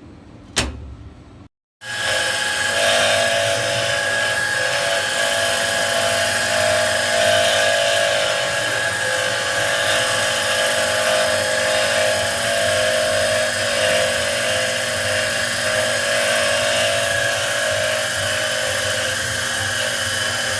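High-speed spindle of a CNC lining drawing and cutting machine running steadily as it cuts, a loud whining hum with several steady tones. It starts abruptly about two seconds in, after a short click.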